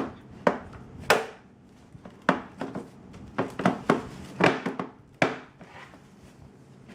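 Plastic parts of a Graco TurboBooster booster seat being handled and fitted together: about ten sharp, irregular knocks and clicks.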